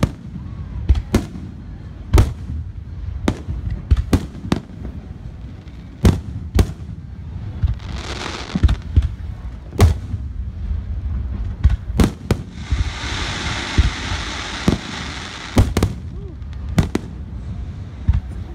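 Aerial fireworks display: shells bursting in a rapid, irregular run of booms, at times several a second, with a few seconds of dense hissing about two-thirds of the way through.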